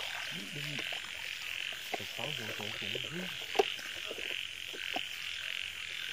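Frogs calling in a chorus, a steady pulsing trill with lower croaks rising and falling over it. A few sharp clicks cut through, the loudest about three and a half seconds in.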